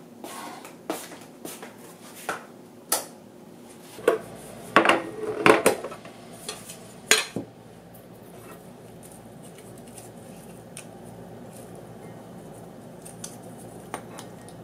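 Sharp clinks and clatters of kitchenware being handled on a counter: a metal tea tin, its lid and a ceramic mug. The clatter is thickest about four to six seconds in, and only faint light ticks follow.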